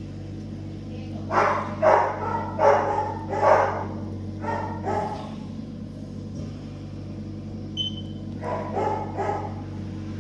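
A dog barking in short bursts, four in quick succession a little over a second in, then a few more later, over a steady low electrical hum. A short high beep sounds once near the end.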